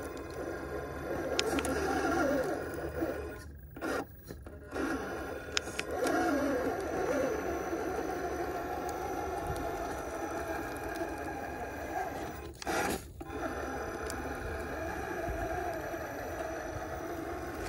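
Electric motor and geared drivetrain of a Traxxas TRX-4-based RC rock crawler whining as it crawls up rock, its pitch wavering with the throttle, with tyres scraping on the stone. The drive drops out briefly twice.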